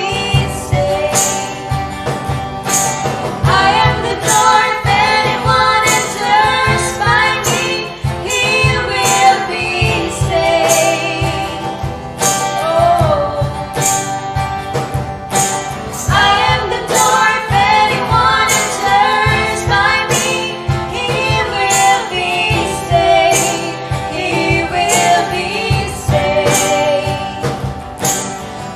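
Christian worship song: female voices singing a melody over instruments with a steady beat.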